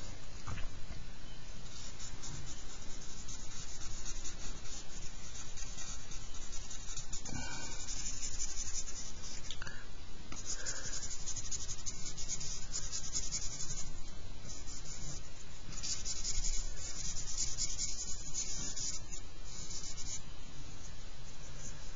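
Charcoal scratching and rubbing across drawing paper. It comes in runs of strokes a few seconds long, with short pauses between them.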